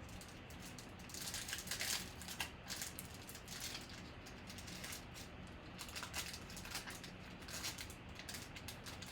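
Baseball cards and their packaging being handled at close range: irregular crisp rustling and sliding, busiest about a second in and again around six seconds.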